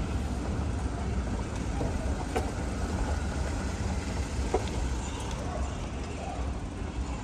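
Steady low rumble of a vehicle with faint voices in the background and two brief knocks.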